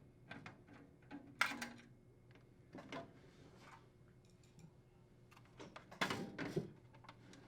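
Screwdriver unthreading screws from a sheet-metal vent hood blower bracket: scattered small metal clicks and scrapes, with louder clatters about a second and a half in and again about six seconds in.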